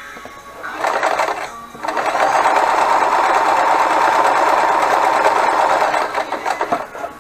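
Frister & Rossmann 502 semi-industrial sewing machine stitching a zigzag through thick fabric: a short burst about a second in, then a steady run of several seconds that slows and stops near the end.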